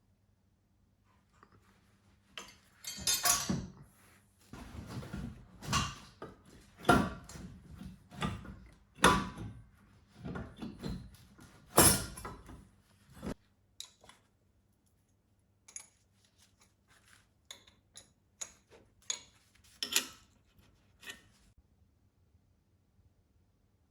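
Hard objects being handled: a run of knocks, clinks and clatters, thick through the first half, then thinning to scattered single clicks.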